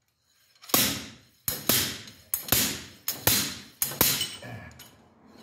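Slide-hammer axle puller on a Roxor's rear axle: the weight slams against its stop about five times, under a second apart, each a sharp metallic strike that rings briefly, with lighter knocks in between. The hammer blows are pulling the rear axle shaft out of the housing.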